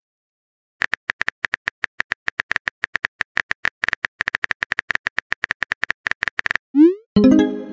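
Texting-app keyboard sound effect: a quick, steady run of typing clicks for about six seconds, then a short rising swoosh and a brief chime as a message pops in near the end.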